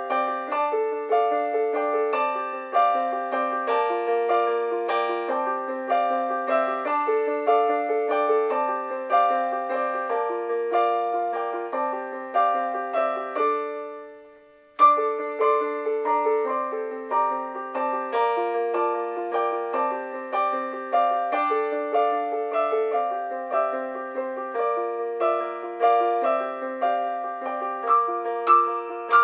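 Piano composition played back from NCH music software: a steady, even run of notes in the middle and upper range, with nothing in the bass. About fourteen seconds in the sound fades out to a brief stop, then the piece starts again abruptly with a strong note.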